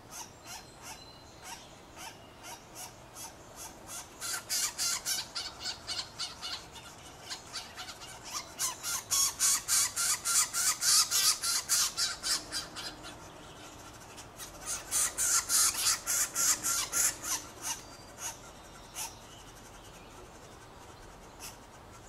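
Northern flicker nestlings begging: a rapid string of short, raspy calls, about four or five a second at their peak. The calls come in three loud bouts as a parent feeds them, then fade to a few faint calls near the end.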